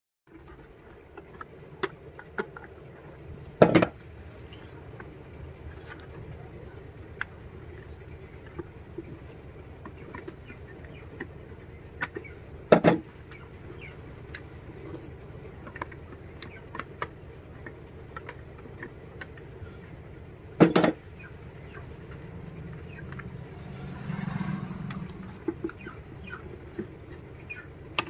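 Hands and tools working on an opened home theatre unit on a workbench: scattered light clicks and taps, with three sharp knocks about eight seconds apart and a short low rumble near the end.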